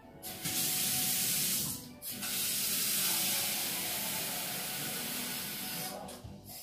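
Water running hard in a steady hiss, in two stretches: a short one of about a second and a half, then, after a brief break, a longer one of about four seconds.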